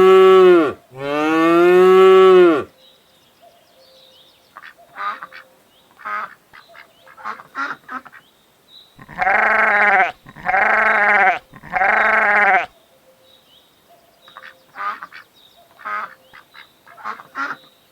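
A farm animal calling: two long drawn-out calls near the start and three more in quick succession in the middle, with bursts of short chirps in between.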